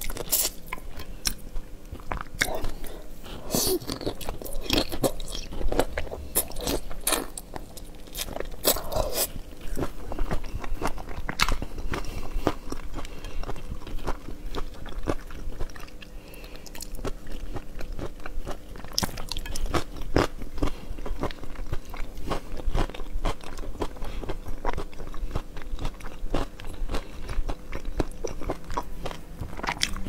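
Close-miked eating of raw shrimp in chili sauce: biting and chewing, with many quick wet clicks and crunches.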